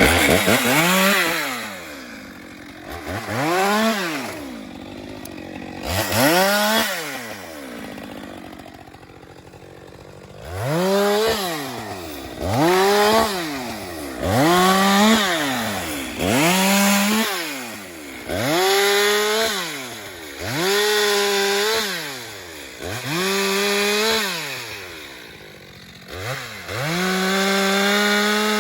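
Two-stroke chainsaw revved again and again, about ten times: each time the engine pitch rises to full throttle, holds briefly and drops back to idle. The final rev is held longest near the end.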